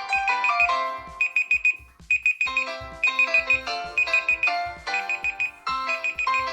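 Smartphone alarm ringtone: a melody of short, stepped notes layered with clusters of rapid high beeps, about five beeps to a cluster. It drops away briefly about two seconds in, then starts again.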